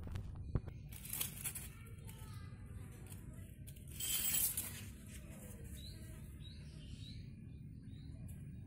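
Rustling as a hand handles the leaves of potted black turmeric plants, loudest about four seconds in, with a sharp click just before the first second. Faint bird chirps repeat in the second half over a steady low hum.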